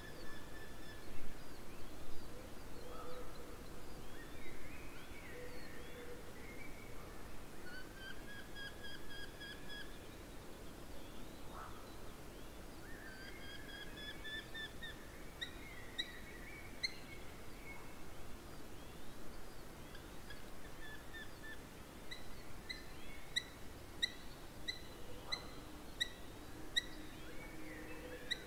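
Several songbirds singing in woodland at dusk, with phrases made of quick runs of short repeated whistled notes, over a faint steady outdoor background.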